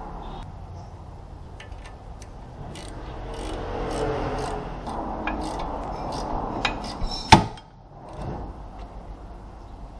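Hand-tool work: rubbing and scraping with scattered clicks, and one sharp, loud knock just past seven seconds.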